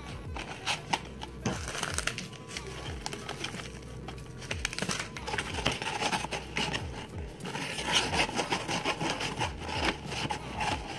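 Metal spoon scraping and stirring a soggy mash of crushed crackers, oatmeal and juice in a styrofoam cup, in many short rubbing scrapes. Background music with a steady beat plays underneath.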